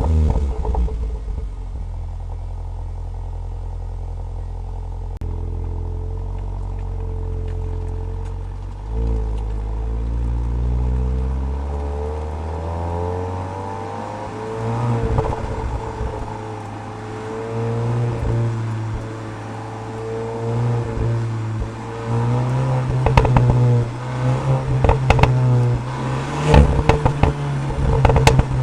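Cupra Leon ST VZ's turbocharged 2.0 TSI four-cylinder just fired up and running at a steady low idle for about twelve seconds, with a brief swell near nine seconds. Its note then climbs and rises and falls as the revs vary, with sharp clicks and cracks in the last few seconds.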